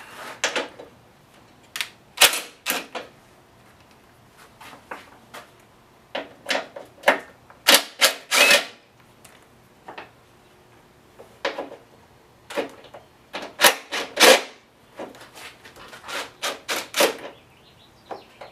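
Sharp, irregular clicks and metal clatter in quick clusters from a cordless drill-driver being worked on the bolts of a push mower's steel deck.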